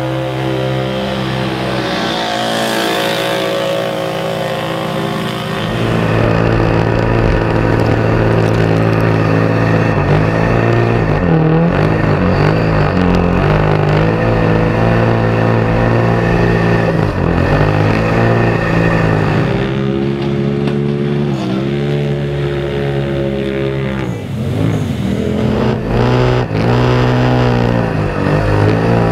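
Side-by-side UTV engine running hard at high revs, its pitch rising and falling with the throttle. It gets louder about five seconds in, and near the end the throttle is lifted and reapplied several times in quick succession.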